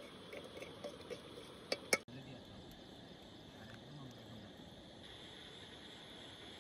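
Night insects trilling steadily in the background, with faint voices and two sharp clicks about two seconds in.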